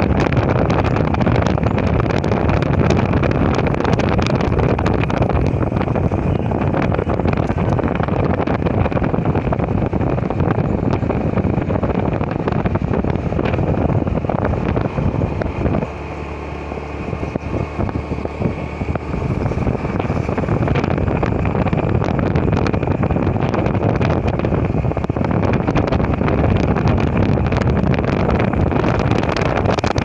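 Wind rushing and buffeting over the microphone of a moving motorcycle, with the bike's engine and road noise beneath. It eases off for a few seconds a little past halfway, then picks up again.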